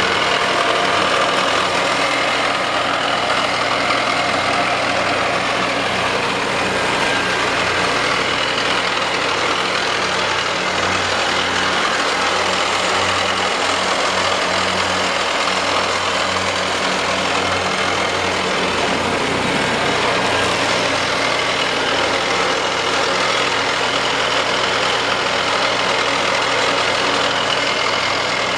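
John Deere F911 front-deck mower's two-cylinder gas engine running steadily as the mower drives across the grass.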